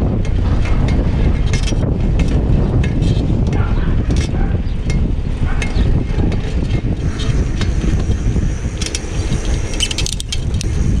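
Wind buffeting the microphone of a moving bicycle, with tyre noise on asphalt and scattered clicks and rattles from the bike.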